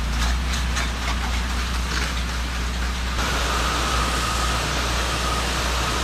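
Pressure washer running, a steady low drone under the hiss of water spray. A thin steady whine joins in about three seconds in.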